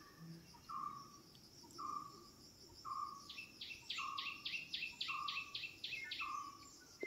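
Faint outdoor animal calls: a short note repeated about once a second, joined from about halfway by a quicker series of higher chirps.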